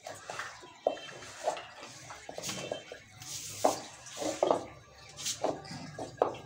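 Hands kneading a soft maida (refined-flour) dough in a large bowl: irregular soft knocks and squishes, about one or two a second, as the dough is pushed and folded against the bowl.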